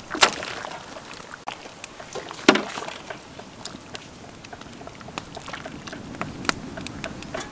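Large aluminium pot of curry soup bubbling over a wood fire as a metal ladle stirs through it, with scattered small clicks and a sharp knock about two and a half seconds in.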